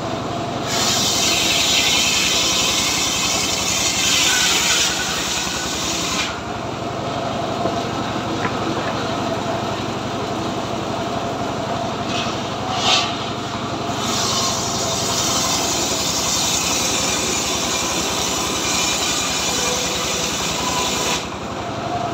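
Homemade cart-mounted circular saw ripping a teak log into planks: the blade's loud cutting hiss comes in two long passes, from about a second in to about six seconds and again from about fourteen to twenty-one seconds, over the steady running of the engine that drives it. A brief knock sounds around thirteen seconds in, between the passes.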